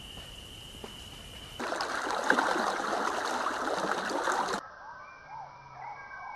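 A sequence of separate nature recordings. First a steady high tone over a faint hiss, then about three seconds of louder running, trickling water, and finally a few short sliding chirps after an abrupt cut.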